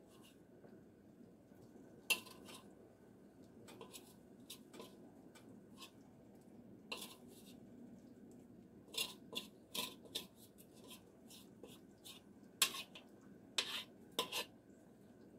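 Metal teaspoon clinking and scraping against a ceramic mixing bowl while scooping drop-dumpling dough: scattered sharp clinks, several in quick succession about nine seconds in and again near the end, over a faint steady background noise.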